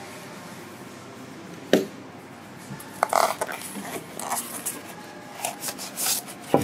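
Polystyrene foam packing and the plastic bag around an amplifier being handled and pulled apart. A sharp knock comes just under two seconds in, then scattered rustles and scrapes.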